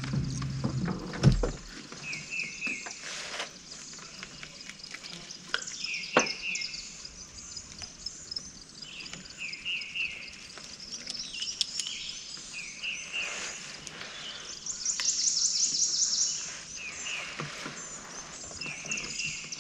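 Songbirds singing: short bursts of chirping notes repeat every few seconds, with a louder, higher rapid trill about fifteen seconds in. A few light knocks, and a low rumble in the first second or so.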